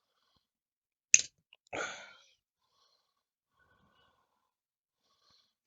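A single sharp click about a second in, as a part of the 3D printer's extruder is worked by hand. Right after it comes a short, forceful breath out.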